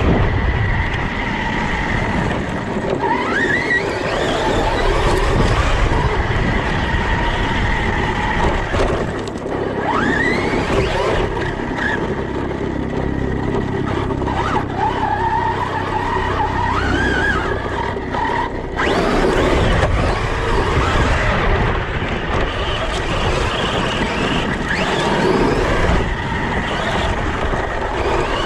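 Brushless electric motor of a 6S LiPo-powered Arrma Outcast RC car whining as it revs, its pitch rising and falling again and again, over a steady low rumble of tyres and wind.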